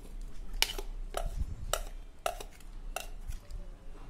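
Steel spoon knocking and scraping inside a steel tumbler as thick sprouted-wheat paste is scraped out into milk, with about five sharp metallic clinks roughly half a second apart.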